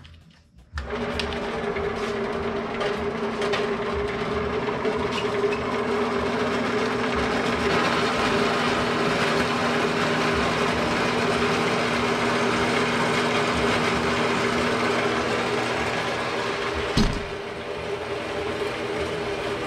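Klutch horizontal metal-cutting band saw starting up about a second in and running steadily as its blade cuts through aluminium angle stock. Near the end there is a sharp knock, after which it runs a little quieter.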